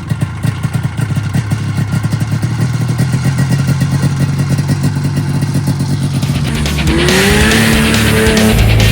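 Crosskart buggy engine running steadily with a rapid firing pulse, under heavy rock music. About seven seconds in the pitch rises and the sound gets louder.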